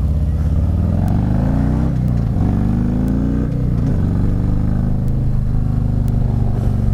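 Harley-Davidson V-twin motorcycle engine pulling away: the revs rise, drop with an upshift about two seconds in, rise again and drop with a second upshift, then the engine settles into a steady cruise.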